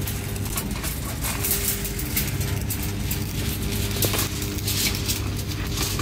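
Steel rebar being handled and joined on a pile cage: irregular sharp metallic clinks and crackles, several a second, over a steady low machine hum.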